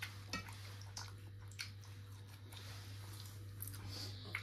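Faint eating sounds: chewing, with scattered small clicks and squishes of food being handled. A steady low hum runs underneath.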